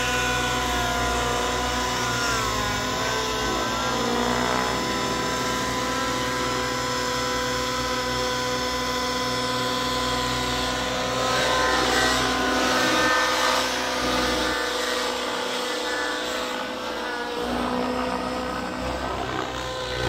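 Two radio-controlled nitro helicopters, a Gaui NX7 and an Align T-Rex 700 Nitro, flying together: glow engines and rotor blades running with a steady whine whose pitch rises and falls now and then as they manoeuvre.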